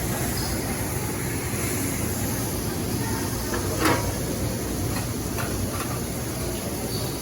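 Steady background noise of a busy cheesesteak shop counter with a low hum, broken by one short, sharp clatter about four seconds in.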